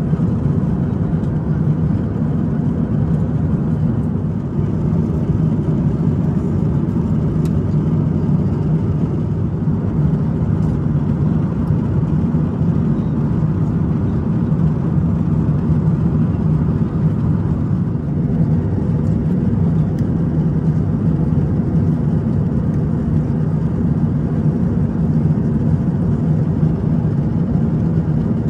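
Steady, even low rumble of an Airbus A350-1000 airliner cabin in flight: engine and airflow noise with no change in pitch.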